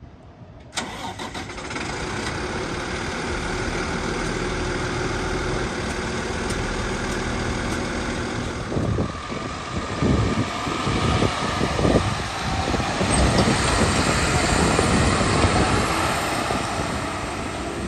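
The Cummins ISC 8.3-litre diesel of a 2011 Autocar Xpeditor garbage truck comes in suddenly about a second in and idles steadily. From about halfway the truck pulls away and the engine note rises, with wind gusting on the microphone.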